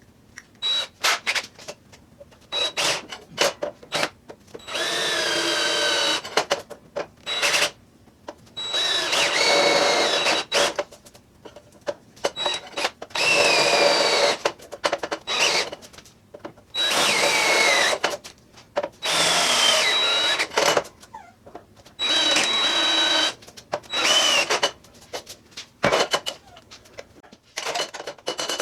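Electric drill cutting into the steel of an ammo can, drilling out spot welds in short runs of a second or two, about seven times. Between runs there are pauses and small clicks. The bit squeals on the metal, wavering in pitch over a steady high motor whine.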